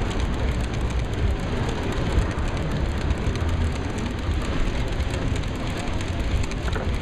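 Large-scale garden-railroad freight train of loaded hopper cars rolling past: a steady, dense clatter of many wheels clicking over the track.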